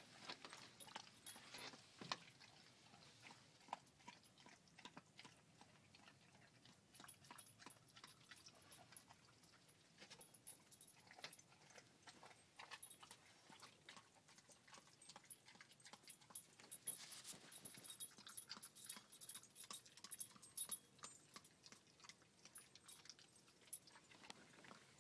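An Airedale terrier chewing a raw chicken back: faint, irregular crunching and chomping as he breaks up the bone slowly.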